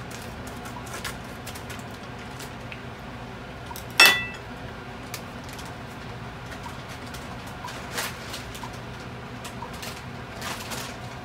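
Metal kitchen scissors set down on the countertop: one sharp, ringing clink about four seconds in. Fainter taps and clicks are scattered over a low steady hum.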